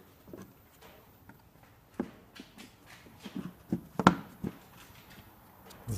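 Plastic knocks and clicks of a Volkswagen Passat B6's air filter housing lid being handled and fitted over a new filter element: a sharp knock about two seconds in, a few lighter clicks, and the loudest knock around four seconds in.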